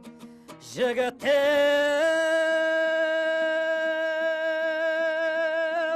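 Kazakh folk song: a male singer draws out one long held note, with a slight wavering vibrato, that steps up a little about two seconds in. A few plucked dombra notes come before it.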